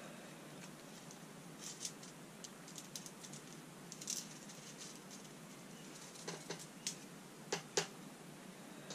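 Scattered light clicks and taps of hands handling a long LED strip board on a workbench, with a few sharper clicks about six to eight seconds in, over a faint steady hiss.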